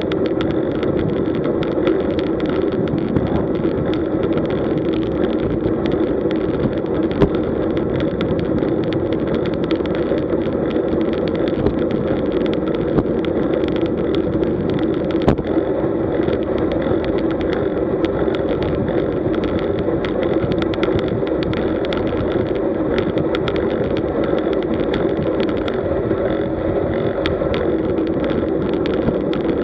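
Steady rush of wind and tyre noise on a road bike's camera microphone at around 35 km/h, with scattered small clicks and knocks.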